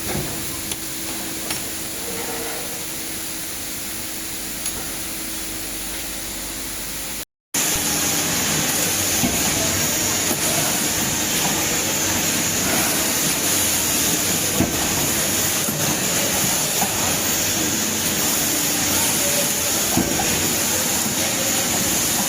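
2D CNC wire-bending machine running: a steady mechanical hum and hiss with occasional sharp clicks. It drops out briefly about seven seconds in, then comes back louder.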